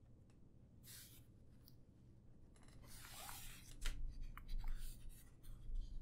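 Hands handling and turning over an aluminium-bodied QK65 mechanical keyboard on a cloth desk mat: soft scraping and rubbing, then from about four seconds in a run of light clicks and dull knocks.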